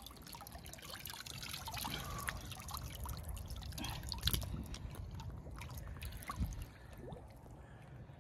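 Water dripping and trickling, with many irregular small splashes and ticks.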